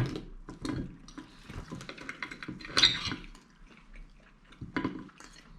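Wet eating sounds: chewing and smacking over boiled sheep's head meat, with scattered small clicks and one sharper knock just before three seconds in.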